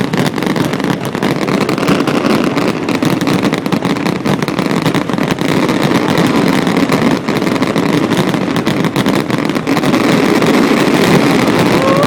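Fireworks display: a dense, continuous barrage of bangs and crackles merging into a steady rumble.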